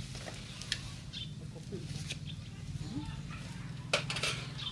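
Spoons clinking against plates and bowls during a meal, with a sharp clink about four seconds in, over a steady low hum.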